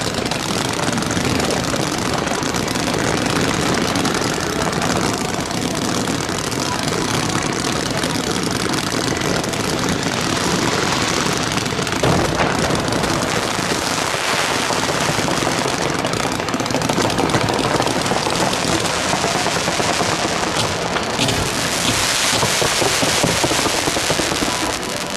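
Fireworks barrage of rising comets and fountain effects, a continuous dense crackling and popping. There is a sharp bang about twelve seconds in, and the hiss grows brighter near the end.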